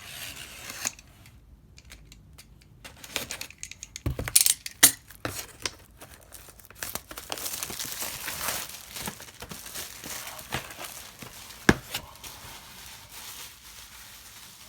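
Packaging being torn open and crinkled by hand as a mystery comic box is unwrapped, an irregular rustling and tearing with a few sharp knocks.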